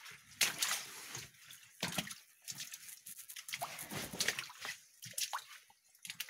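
Footsteps splashing through shallow water, an irregular run of sloshing steps.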